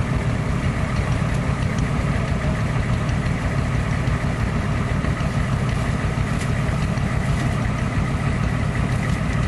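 A truck engine idling steadily with an even, rapid low pulse.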